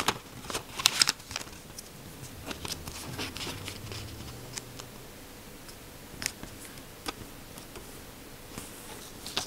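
Small sheet of origami paper being handled and folded against a table: crisp rustles and creasing clicks, loudest about a second in, then scattered lighter ones.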